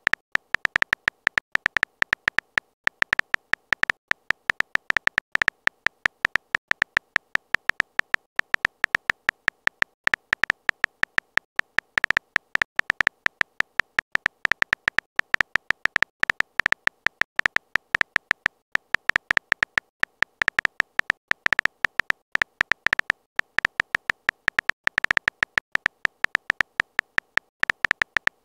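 Smartphone keyboard typing sound effect: short, slightly tonal clicks in quick succession, several a second, with brief irregular pauses.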